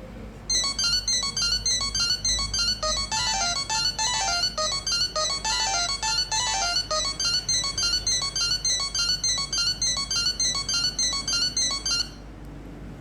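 Nokia 6100 ringtone played through a Nokia 3110 classic's loudspeaker: a quick electronic tune of short notes that starts about half a second in and cuts off abruptly near the end.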